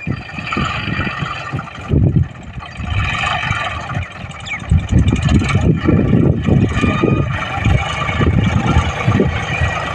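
John Deere 5050D tractor's three-cylinder diesel engine running steadily under load while pulling a seed drill. A steady higher whine sits over an uneven low rumble.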